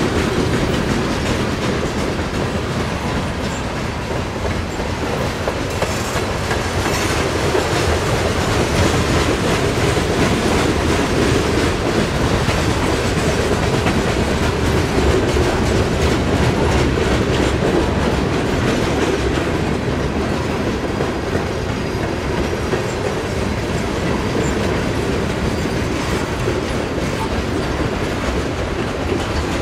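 Loaded coal hopper cars of a freight train rolling past at steady speed: steel wheels running on the rails, with clickety-clack as the wheels cross rail joints.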